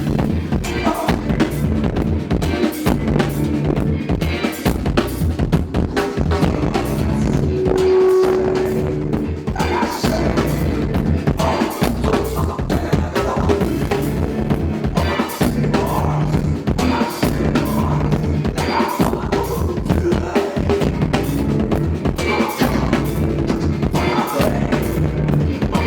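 Band music with a drum kit driving it, bass drum and snare hits prominent throughout.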